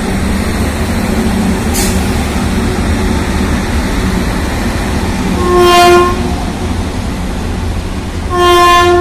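Pair of Indian Railways electric locomotives hauling a freight train past at close range: a steady rumble of wheels on rail, with a clank about two seconds in. The locomotive horn sounds two short, loud blasts, one a little past halfway and one near the end.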